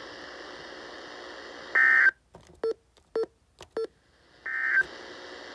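NOAA Weather Radio at the end of a warning message: faint steady transmitter hiss broken by two short screechy digital data bursts of SAME end-of-message tones, one about two seconds in and one near the end. In the near-silent dropout between them come a few faint short beeps.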